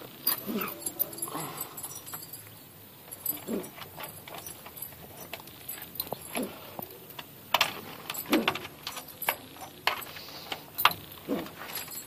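Scattered metal clinks and rattles of a wire-mesh pigeon cage and its latch being handled and opened, with a few short low calls from the pigeons inside.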